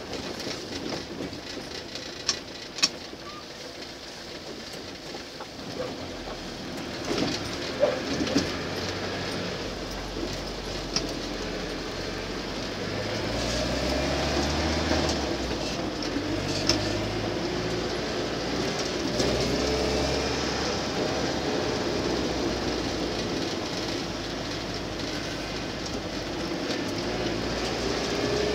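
Land Rover Series II engine and drivetrain heard from inside the cab, quiet at first with a few sharp knocks, then pulling away and accelerating, the engine note rising several times as it goes up through the gears.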